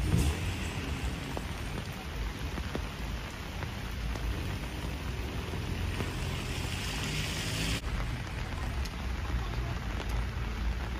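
Steady rain falling, an even hiss over a low rumble. The hiss swells and then changes abruptly about eight seconds in.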